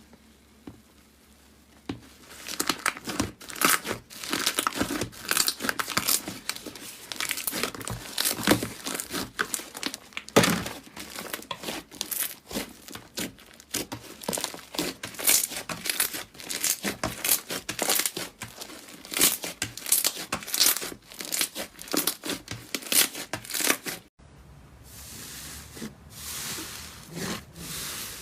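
Slime being squeezed and stretched by hand: a dense run of crackling, crinkly pops starting about two seconds in. It breaks off abruptly near the end and resumes as softer crackling.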